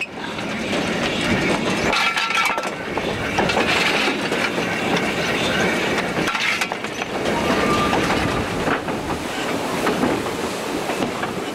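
Narrow-gauge steam locomotive and its train under way, heard at close range: a steady clattering rumble of the running train.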